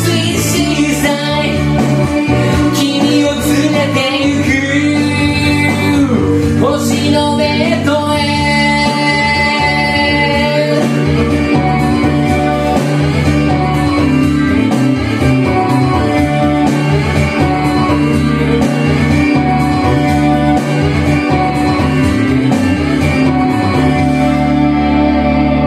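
Pop-rock song's closing section: a high-pitched voice sings wordless sliding ad-libs over the backing music for about the first ten seconds, then the backing music carries on alone.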